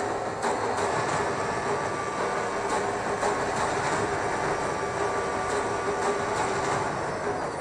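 Onboard sound of a 2021 Mercedes W12 Formula 1 car's 1.6-litre turbocharged V6 hybrid engine, running at high, nearly steady revs down a straight.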